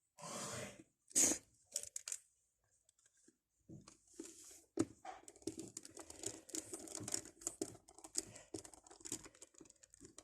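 Small clicks, ticks and scraping of a precision screwdriver and the phone's plastic housing as the Nokia 2730's screws are driven back in. There is a sharp handling knock about a second in, and the clicking becomes near-continuous from about four seconds on.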